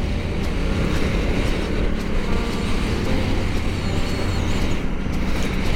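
Honda Africa Twin CRF1000L adventure motorcycle riding along a gravel road. Its engine and the tyres on the gravel make a steady noise, under heavy wind buffeting on the camera microphone.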